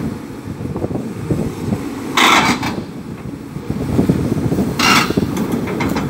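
Caterpillar forestry excavator's diesel engine running with a rough rumble, broken by two short hisses, one about two seconds in and a shorter one about five seconds in.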